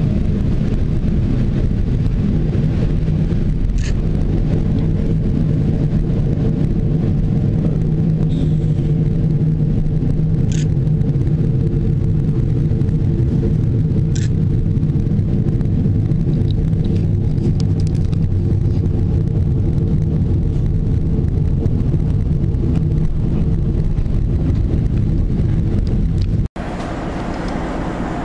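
Moving passenger train heard from inside the carriage: a steady, loud running rumble with a few faint ticks. Near the end it breaks off abruptly and resumes quieter.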